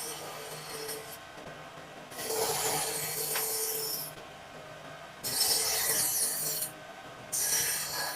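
Long rubbing strokes across a wooden cutting board, each about one to two seconds of dry scraping with short pauses between.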